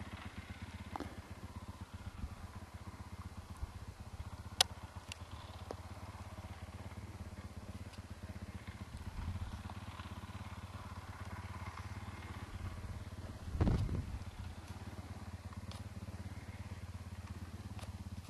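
Faint, steady running of a dirt bike's engine as the bike comes down a steep slope, with a sharp click about four seconds in and a louder low thump about three-quarters of the way through.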